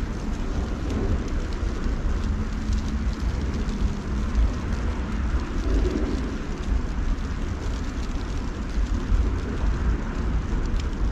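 Outdoor ambience during a snowfall: an even hiss over a low rumble that rises and falls, with faint scattered ticks.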